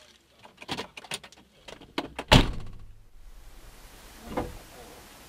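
A few light clicks, then one loud sharp knock on the Land Rover's body, heard through the car from the dashcam inside, as a passer-by walks into the front of the car and snaps off the headlight washer unit. A weaker knock follows about two seconds later.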